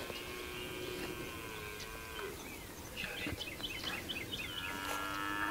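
Birds calling over a field, with a quick run of short high chirps about three seconds in, over a few long, low, held tones.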